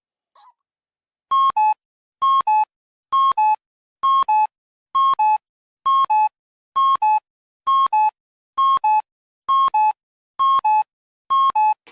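Cuckoo clock calling, the falling two-note "cu-ckoo" repeated twelve times at a steady pace of about one call a second, each note with a sharp mechanical click. It starts about a second and a half in after a brief pause.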